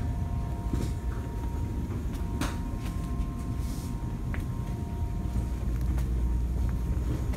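Store background noise: a steady low rumble and hum, with a few light clicks and knocks.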